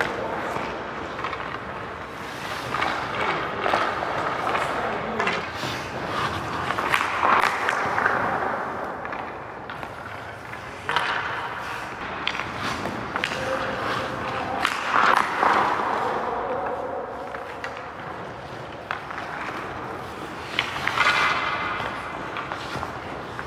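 Ice hockey skates scraping and carving on rink ice in several swelling rushes, with a few sharp knocks of stick and puck.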